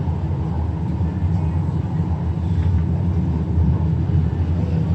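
Inside an MRT Putrajaya Line train carriage running between stations: the steady low rumble and hum of the train in motion.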